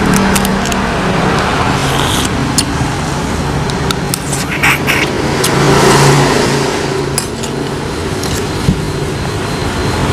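Steady road-vehicle engine noise running through, with scattered sharp clicks of a metal spoon and fork against a bowl.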